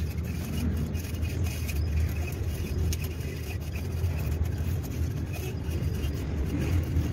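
An Okuma Cavalla fishing reel being cranked by hand to wind line onto its spool, heard as light, irregular ticks and scrapes over a steady low rumble.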